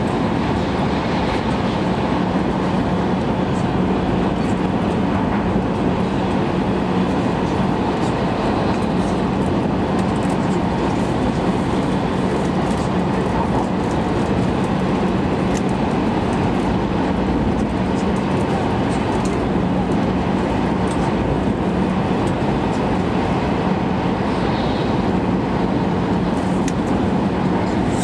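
Cabin noise of a Shinkansen bullet train running at about 310 km/h: a steady rumble and rush of wheels and air, with a low hum held throughout.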